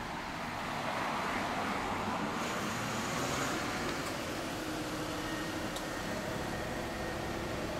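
Road traffic noise: a passing vehicle swells in about a second in and fades over steady traffic hum.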